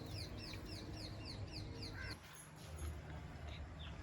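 A bird calling in a fast series of short, high, falling chirps, about four a second; the series breaks off about halfway through and starts again near the end, over a faint low hum.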